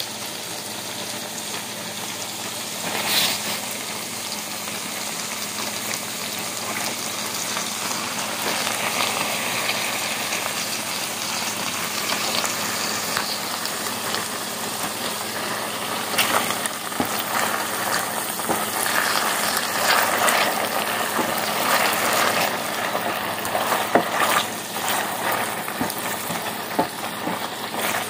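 Mushrooms frying in a stainless steel pan with sesame oil and freshly added soy sauce, a steady sizzle that grows a little louder partway through, with a few sharp clicks.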